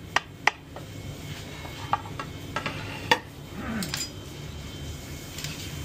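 Metal kitchen utensils and plates clinking and clattering on a steel counter: a handful of sharp clicks, the loudest about three seconds in, over a steady low kitchen rumble.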